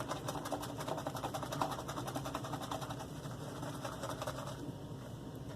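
Shaving brush being worked briskly in a lathering bowl of shave soap with a little added water, a fast even run of wet swishing strokes that eases off about four and a half seconds in.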